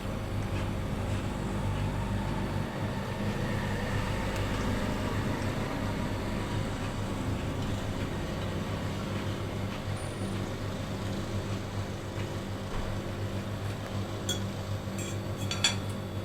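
A steady low mechanical hum, with a few light clicks near the end.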